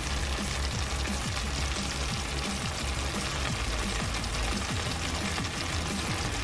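Pork adobo frying in a stainless steel pan, a steady sizzle as the sauce cooks down and the pork is nearly done.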